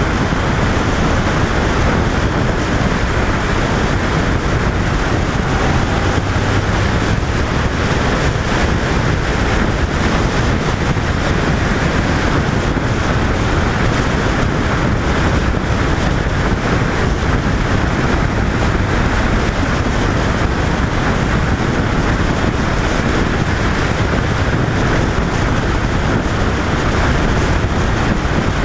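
Steady wind rush buffeting the microphone of a camera mounted on a moving 2005 Honda VFR800, with the bike's V4 engine running beneath it at a steady cruise.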